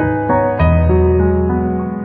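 Slow, soft background music: keyboard chords over a held bass note, with a new chord coming in about half a second in.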